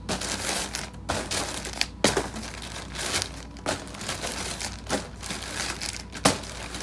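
Plastic poly mailer shipping bags crinkling and rustling as they are handled and held up, with a sharp crackle every second or so.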